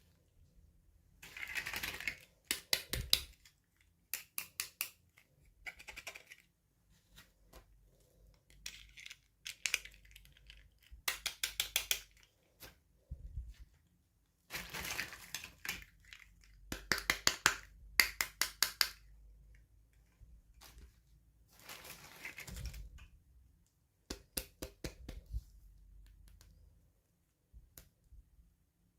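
Toy packaging being handled and opened by hand: repeated short bursts of crinkling and rustling, with quick runs of sharp clicks and taps in between.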